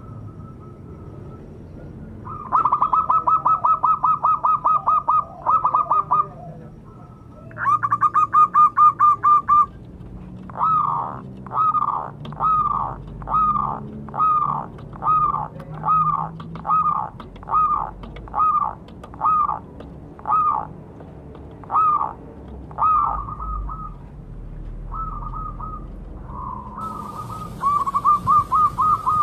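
Zebra dove (perkutut) calling. Fast trains of staccato coos are followed by a long run of separate falling cooing notes, about one a second, and short fast trains start again near the end.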